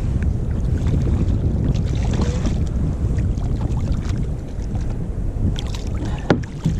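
Steady wind buffeting the microphone, with water sloshing against the hull of a plastic sit-on-top kayak. A few sharp knocks sound near the end.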